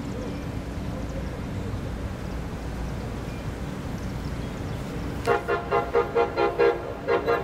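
Low steady rumble of an approaching MBTA commuter train. About five seconds in, its locomotive air horn sounds in a quick series of short blasts, about four a second.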